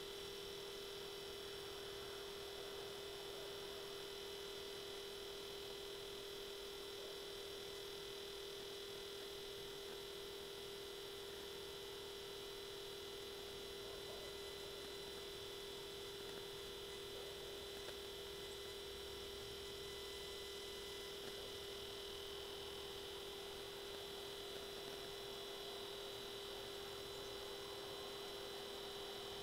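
A steady hum of a few fixed tones, a low one with a higher whine above it, unchanging throughout.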